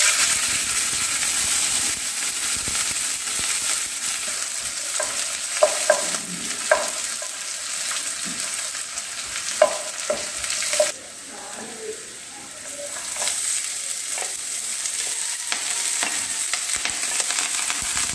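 Chopped garlic sizzling in hot oil in a nonstick frying pan, the sizzle starting suddenly as the garlic goes in. A spatula stirs it, with a few sharp taps and scrapes against the pan, and the sizzle eases briefly about two thirds through.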